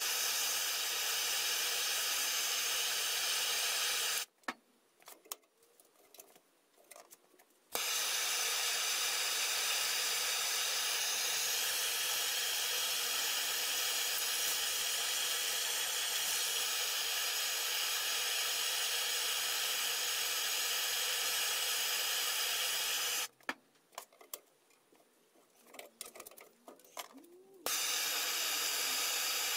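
MAPP gas hand torch burning with a steady hiss as it heats steel flat bar. The hiss cuts off abruptly twice, for about three and four seconds, leaving only a few faint clicks.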